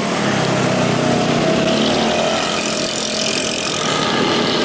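Intercity bus running with a 'ngorok' (snoring) modified exhaust, a rasping, tinny exhaust note. Its pitch climbs over the first two seconds or so as the engine picks up, then holds steady.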